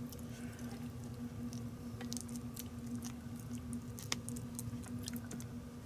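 Metal spoon spreading apple jelly on a split biscuit: soft scattered scrapes and light clicks, with a sharper tick about two seconds in and another about four seconds in, over a steady low hum.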